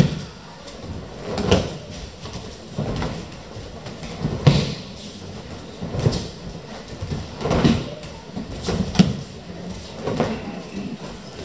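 Dull thuds of aikido attackers being thrown onto tatami mats and breakfalling, about one every one and a half seconds as each attacker goes down in turn.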